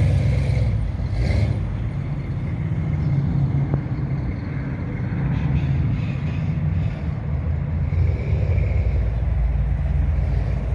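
A classic car's engine running at low speed as it rolls in, a steady deep exhaust rumble.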